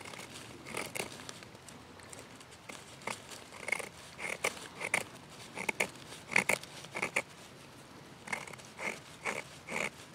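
A blade shaving thin curls off a resin-rich fatwood stick to feather it for fire-starting: a series of short, irregular scraping strokes, roughly two a second.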